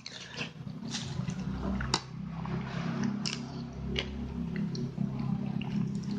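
Close-up wet eating sounds: chewing and slurping of rawon and half-boiled egg, with scattered sharp clicks.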